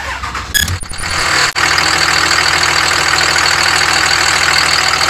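A 5.9 Cummins inline-six turbodiesel in a 2005 Dodge Ram 2500 is started in about the first second and then idles steadily with its oil filler cap off. The engine has crankcase blow-by well past Cummins' limit for a rebuild.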